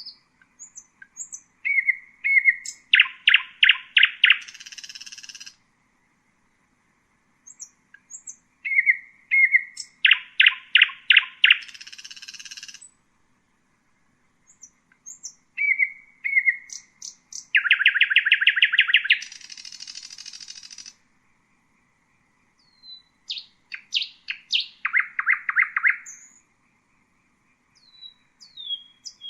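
Common nightingale singing in separate phrases a couple of seconds apart. Each phrase opens with a few soft whistles, builds into a fast run of loud repeated notes, and most end in a buzzy rattle; a new phrase starts near the end.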